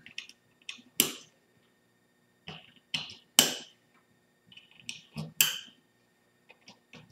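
RJ45 plugs on Cat5e patch cables snapping into the relay modules' jacks: three sharp plastic clicks about two seconds apart, with quieter handling clicks and rustle of cable and plastic housings between.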